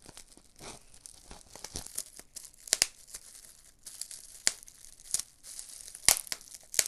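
Bubble wrap and plastic packaging crinkling and tearing as a parcel is unwrapped by hand, with about half a dozen sharp pops of bubble wrap, the first pair a little under 3 seconds in and the rest spread toward the end.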